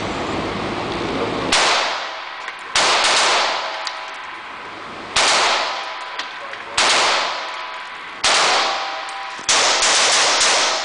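Colt AR-15 Sporter .223 rifle with a Slide Fire stock bump-firing: six short strings of rapid shots, the first about a second and a half in, each ringing off in the echo of an indoor range.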